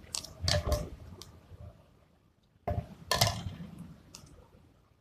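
Adhesive tape being peeled off its roll, two crackly pulls: one right at the start lasting about a second, another almost three seconds in.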